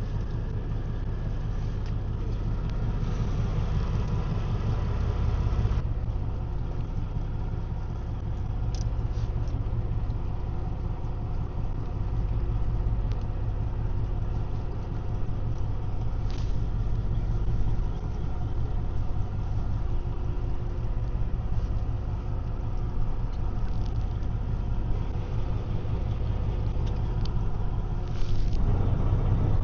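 A fishing boat's engine running steadily with a low rumble, with a few faint short knocks over it.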